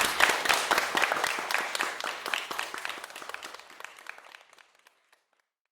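Audience applauding, many hands clapping, fading away steadily to silence about five seconds in.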